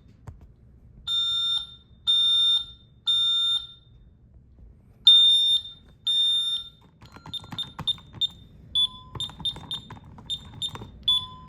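Fire alarm sounding the three-beep fire pattern: three high beeps about half a second each, a pause, then two more. From about 7 s on, a run of short, quick beeps comes in irregular groups, with a few lower tones and some clicks.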